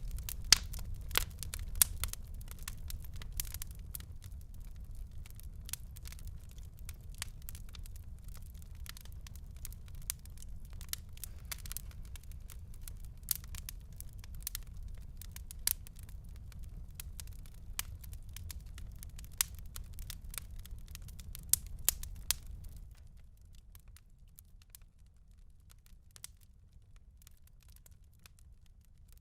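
Fire crackling and popping: dense sharp snaps over a low steady rumble. About 23 seconds in it drops suddenly to a faint hush with only an occasional pop.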